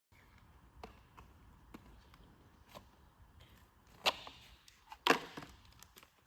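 Handling noise from bicycle parts being worked by hand: light clicks and taps, then two louder brief brushing sounds about four and five seconds in.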